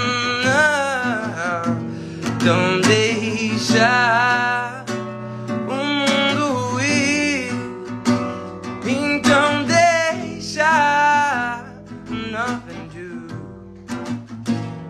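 Acoustic guitar playing chords under a man singing a sliding melody. The voice drops away near the end, leaving mostly the guitar.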